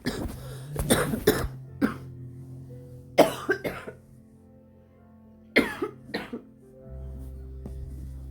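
A woman coughing in three short fits of two or three coughs each, over quiet background music.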